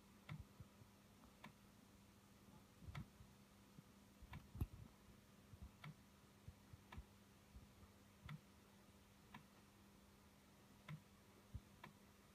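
Near silence with a faint low hum and faint, sharp clicks at uneven intervals, roughly one a second; the loudest comes about four and a half seconds in.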